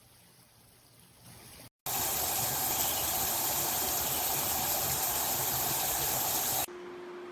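Handheld shower head spraying water hard, a loud steady hiss that starts abruptly about two seconds in and stops abruptly near the end. A quieter steady hum follows.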